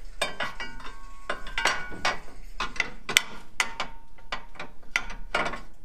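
Irregular metal clinks and knocks, some ringing briefly, as a steel sector arm brace is slid onto the steering box and frame and its bolts are threaded through by hand.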